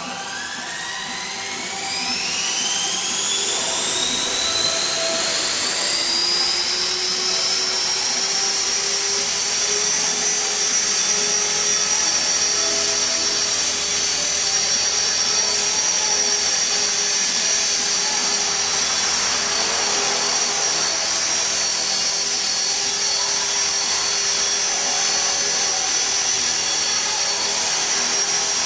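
E-Sky Belt CP electric RC helicopter spooling up. The motor and rotor whine rises steeply in pitch over the first several seconds as the head comes up to speed, then holds a steady high whine as the model hovers and flies.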